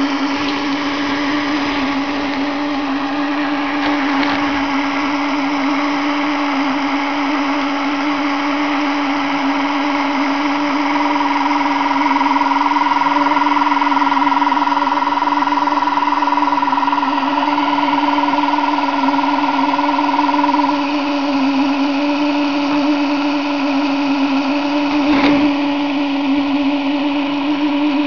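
Small electric drive motor and gearing of an H0-scale model Twister fairground ride running steadily, a constant hum. A higher whine joins in about a third of the way through for roughly ten seconds, and a single click sounds near the end.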